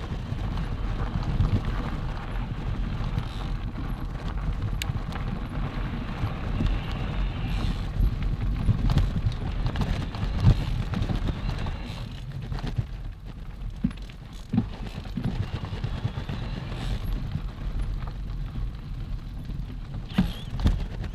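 Mountain bike rolling over a gravel trail: tyres crunching and the bike rattling over bumps with many small knocks, under a steady low rumble.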